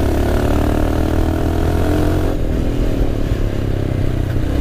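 Royal Enfield Himalayan's single-cylinder engine running under way on a dirt trail, with wind noise on the helmet microphone. The engine note eases a little about halfway through.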